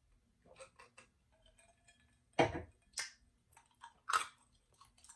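Close-miked mouth sounds of a person eating and drinking: sipping, swallowing and chewing. They come as a string of short, separate sounds with small wet clicks, and the loudest comes about two and a half seconds in.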